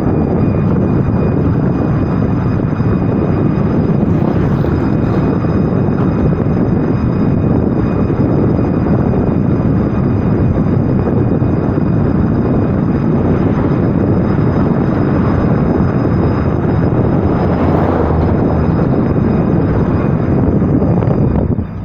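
A 2011 Volkswagen Voyage being driven, with a loud, steady road and tyre rumble. Faint steady high-pitched tones sit above the rumble; the owner likens the noise from the front left wheel to a cricket. The rumble drops off sharply near the end.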